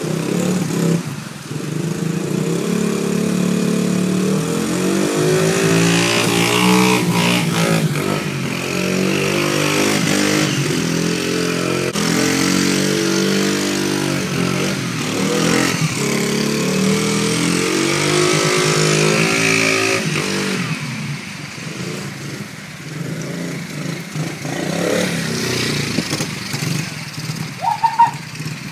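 A 50cc pit bike engine revving in repeated surges, its pitch climbing and falling again and again. For the last third it runs at lower, uneven revs.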